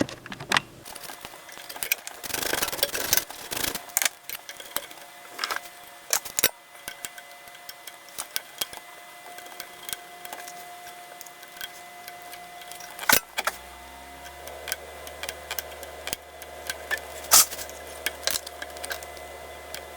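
Irregular small metallic clicks and clatters of screws, tools and a circuit board being handled and fitted on a workbench. A low hum comes in about two-thirds of the way through.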